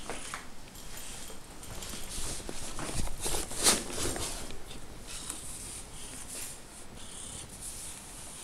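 Short rustles and scuffs of handling and movement around a cat and a cardboard box, with a louder rustle about three and a half seconds in.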